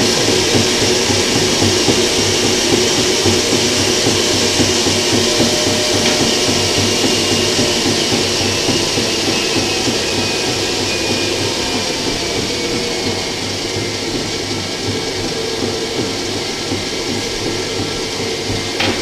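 Electric stand mixer running steadily, its beater creaming butter, margarine and icing sugar in a steel bowl.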